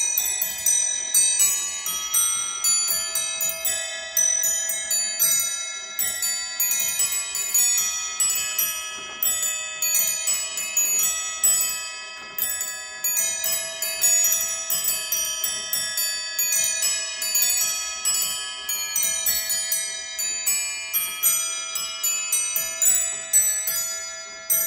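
Black Forest carillon clock playing a melody on its bells: a pinned barrel lifts the hammers, which strike the bells in quick succession, the notes overlapping as they ring. The last notes come at the very end and ring on as they fade.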